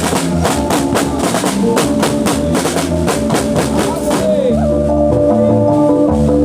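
Live band music: a fast run of drum and percussion hits over held melody notes. About four seconds in the drumming drops out, leaving sustained keyboard-like melody notes over a bass line.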